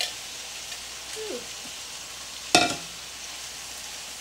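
Ground beef, onions and frozen mixed vegetables sizzling in a skillet as they are stirred. A steady frying hiss, with a single loud, sharp clank about two and a half seconds in that rings briefly.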